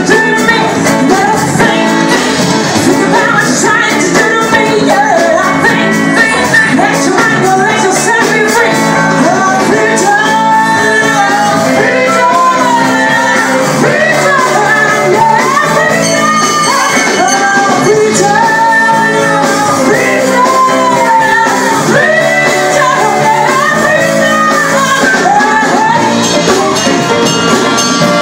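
Live band playing loud pop-rock with a singer over electric guitar and hand drums, recorded close up on a mobile phone.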